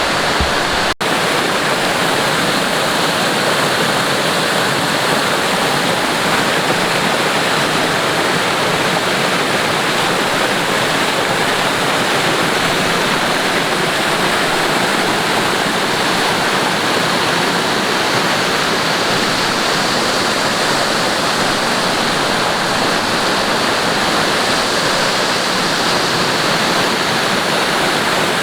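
Rocky mountain stream cascading over boulders: a loud, steady rush of water, broken by a very short dropout about a second in.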